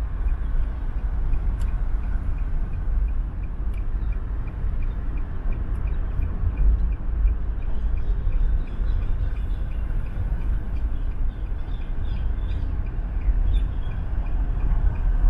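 Steady road and wind rumble from a moving vehicle, heavy in the low end, with a faint high ticking about three times a second through the first half.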